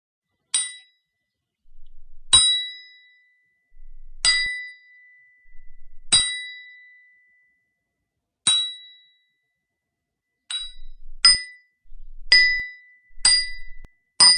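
Hammer striking a steel chisel: about ten sharp metallic blows, each ringing briefly at a clear pitch. The blows come roughly every two seconds at first, then quicker and closer together in the last few seconds.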